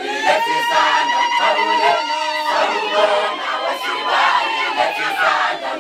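A group of women singing a Zulu wedding song together, with the sound of a crowd around them. One high note is held for several seconds over the singing, dropping slightly near the end.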